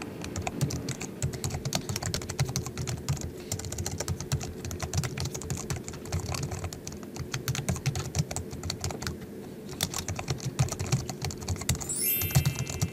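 Rapid typing on a Logitech MX Keys keyboard's low-profile scissor-switch keys: a quick run of soft key clicks with short pauses. A brief rising electronic tone sounds near the end.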